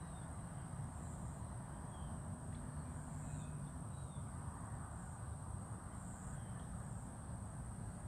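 Outdoor dawn ambience: a steady high-pitched insect drone with a few faint, short bird chirps over a low background rumble.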